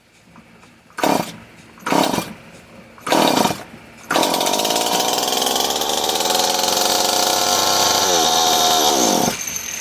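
Stihl MS 170 two-stroke chainsaw being pull-started on a little gas poured into it: three short bursts on the first pulls, then it catches and runs at high speed for about four seconds before slowing down and dying.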